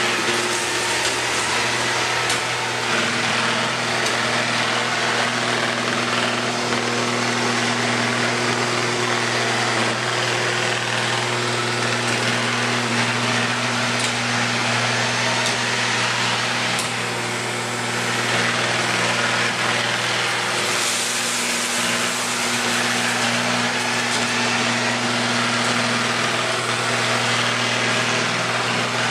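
Robot vacuum cleaner running steadily as it drives over a tile floor: a constant whirring rush from its suction fan and brushes over a steady low hum, easing briefly partway through.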